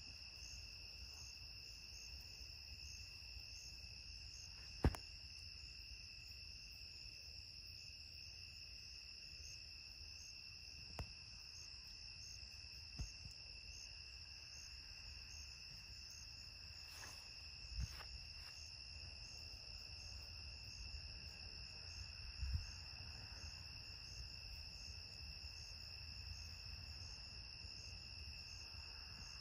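Steady high-pitched chorus of crickets at night, unbroken throughout. A few short sharp clicks sound over it, the loudest about five seconds in.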